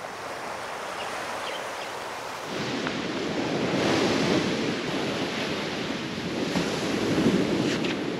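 Sea waves washing in, with wind on the microphone; the wash swells and eases a couple of times.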